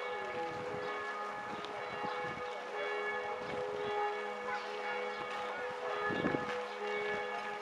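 Church bells ringing: several bell tones hum on together and overlap, some fading out and coming back. A few short low rumbles cut across them, the strongest about six seconds in.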